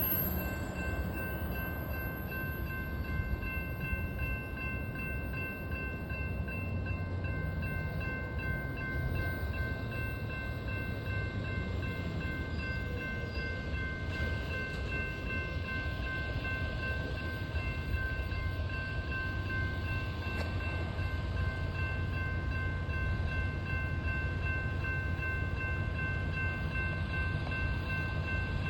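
Railroad crossing warning bell ringing steadily, its several bell tones held throughout, over a continuous low rumble.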